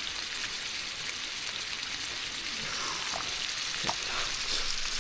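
Food sizzling steadily in a frying pan, with small crackles and pops.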